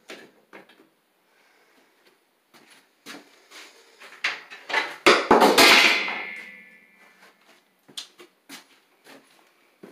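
Light handling knocks, then about five seconds in a sudden loud metallic clatter that rings on and fades out over about two seconds.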